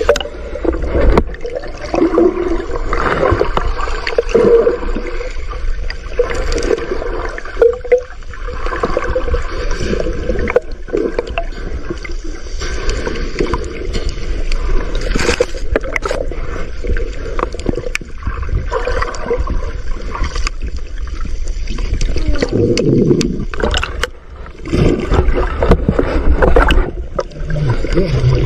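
Underwater water noise heard through a submerged camera's housing: a steady muffled gurgling rush with low rumble and scattered knocks, as a fishing net full of fish is hauled up through the water.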